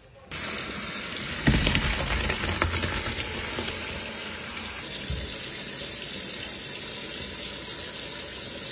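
Cooking water from a pot of cappelletti poured through a colander into a kitchen sink: a steady gushing rush of water. It has a few heavier splashes, the first about a second and a half in.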